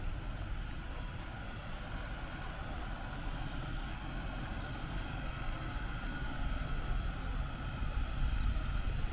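Steady low rumble of vehicle traffic, growing a little louder near the end.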